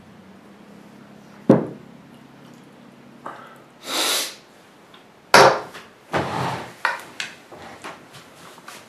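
A drinking glass set down on a wooden table with a sharp knock, a short breathy exhale, then a wooden dining chair knocking and scraping as someone gets up from the table, followed by a few lighter knocks and shuffling.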